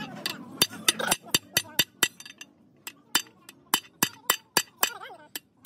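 Hammer striking a steel punch against the metal parts of an excavator hydraulic pump, a quick run of sharp metallic clinks about three or four a second, with a short pause a little after two seconds in.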